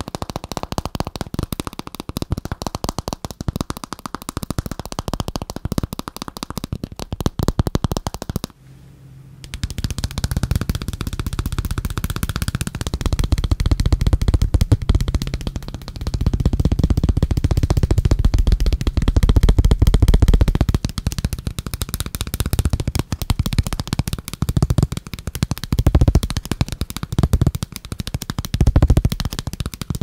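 Rapid fingernail tapping on a thin plastic sheet, then, after a brief break about nine seconds in, fast fingernail tapping on a phone case with a deeper sound.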